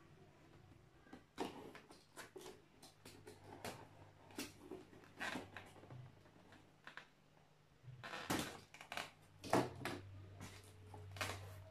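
Cardboard box and packaging being opened and handled: irregular rustling, scraping and light knocks, with a cluster of sharper clacks about eight seconds in.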